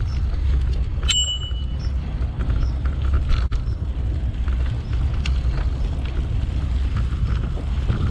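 Steady low rumble of wind on the microphone and tyres on the path while riding a bicycle. About a second in, a bicycle bell rings once, a short clear ding that fades out.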